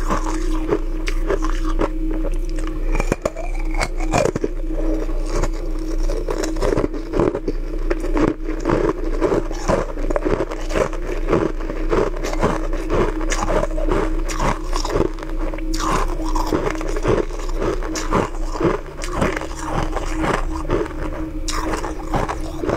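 Frozen ice rings being bitten and chewed close up: a rapid, irregular run of crisp crunches, two or three a second, over a steady low hum.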